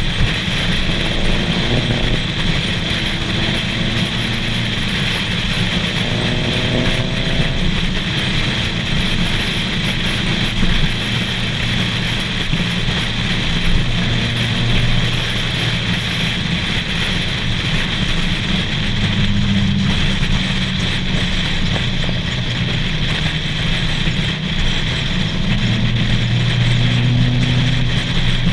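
Car driving steadily on the road: a low engine hum that shifts in pitch now and then, under constant wind noise on the microphone.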